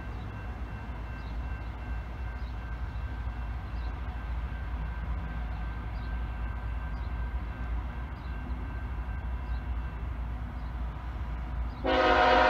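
A steady low rumble, then near the end a train's locomotive air horn starts sounding loudly, several notes at once as a chord.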